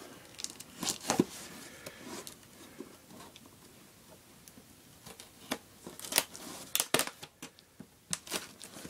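A small blade slitting and picking at packing tape on a cardboard box, giving a scatter of short, sharp scratches and clicks, busiest about a second in and again from about five seconds on.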